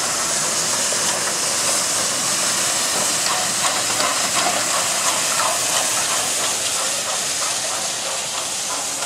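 A steam locomotive passing slowly with a steady, loud steam hiss. A light, even clatter of wheels over the rail joints comes through in the middle.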